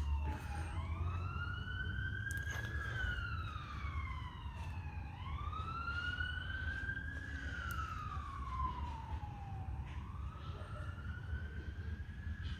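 Emergency vehicle siren wailing, its pitch rising and falling slowly in a cycle of about five seconds, over a steady low rumble.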